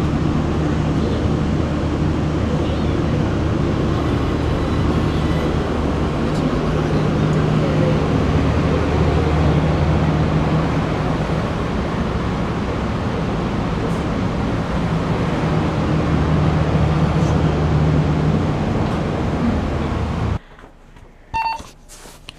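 Steady whoosh of a broadcast transmitter's cooling fans with a low steady hum underneath. It cuts off suddenly about twenty seconds in, leaving a much quieter stretch with a few faint knocks.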